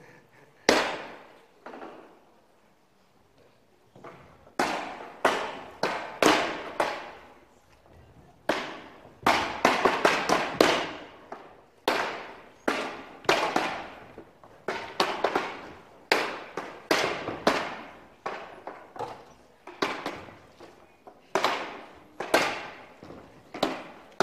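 A long run of sharp knocks or claps, each ringing out in a large hall. They come singly at first, then in quick runs of about two a second, with short gaps between runs.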